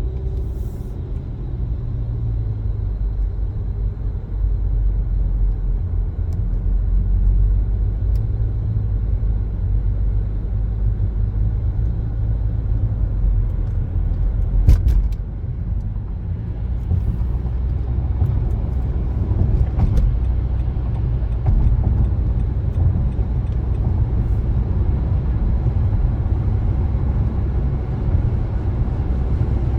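Car being driven: a steady low rumble of road and engine noise, with a few brief clicks or knocks, the loudest about fifteen seconds in.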